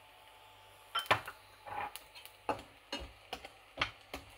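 Metal slotted spatula stirring sliced onions in a stainless steel frying pan, knocking and scraping against the pan. After a quiet first second come irregular sharp clicks, about two a second.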